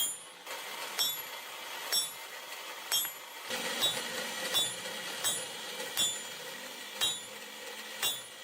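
Hammer blows forging a heated steel billet on an anvil, each strike ringing metallically. About one blow a second at first, quickening a little about three and a half seconds in.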